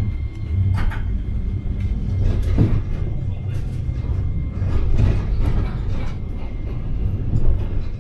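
Iyotetsu streetcar running, heard from the cab: a steady low rumble of motors and wheels on the rails, with scattered clicks and knocks as the wheels pass over track joints and curves.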